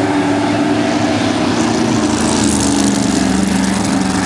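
Engines of several dirt-track race cars running at speed around an oval. About halfway through, one car passes close by, bringing more hiss and an engine note that slides gently lower.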